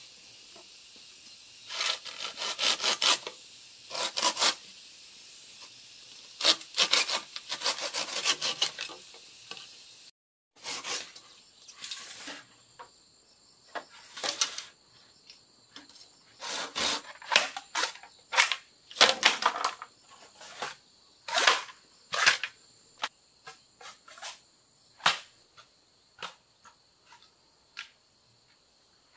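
Machete blade scraping and striking green bamboo poles in bursts of rasping strokes and short knocks, over a steady chorus of crickets and other insects.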